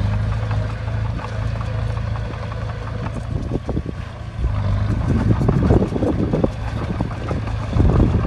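A heavy earthmoving machine's diesel engine running steadily with a low hum. About halfway through, louder, irregular rough noise joins it.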